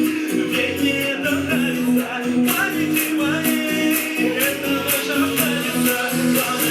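Song playing: a voice singing over a band with a steady beat.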